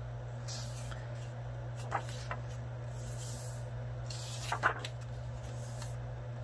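Paper pages of a notebook being turned by hand: a few soft rustles and a sharper flick of a page about four and a half seconds in, over a steady low hum.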